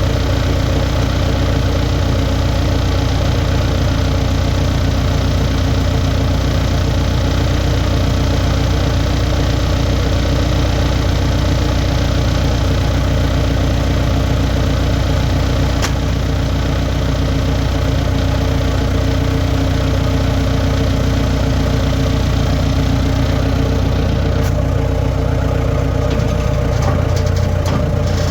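Skid steer engine running steadily at a constant pitch, loud and close.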